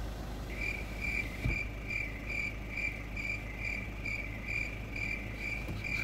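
Cricket chirping sound effect: a steady run of short, high chirps, about two or three a second, starting about half a second in. It is the comic cue for an awkward silence.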